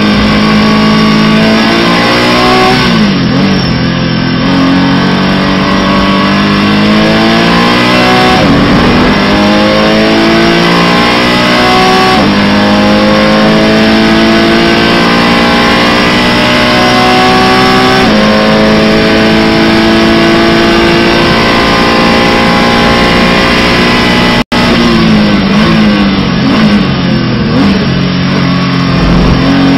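Porsche Cayman GT4 Clubsport's flat-six engine under full throttle, heard from inside the cockpit. Its pitch climbs through the gears, with upshifts about 3, 8, 12 and 18 seconds in. Near the end it steps down through several downshifts under braking, and the sound cuts out for an instant just before.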